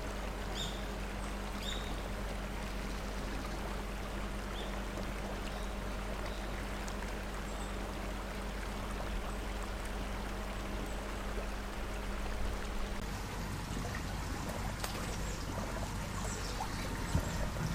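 Shallow river water running steadily, with a few brief high bird chirps near the start and again near the end.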